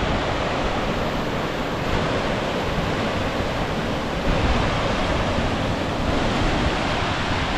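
Steady rushing of a fast-flowing mountain river and waterfalls, an even, unbroken roar of water.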